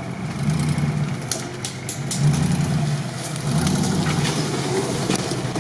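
Nissan Patrol 4x4's engine running at low revs as it crawls over forest ground, swelling and easing off three times. A few sharp cracks sound about one to two seconds in.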